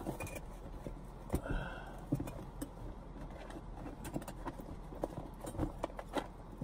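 Rummaging through overhead storage: irregular light knocks and clatter of items being shifted around while searching for a knife.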